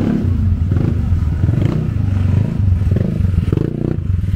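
Motor scooter engine running at low speed close by, a steady low sound with a rapid, even pulse.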